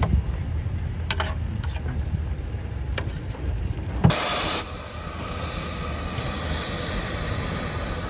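Case 150 steam traction engine working under load while hauling a gang plow: a steady low rumble with a few faint knocks. About halfway through, a sudden loud hiss of steam bursts out and carries on as a steady hiss.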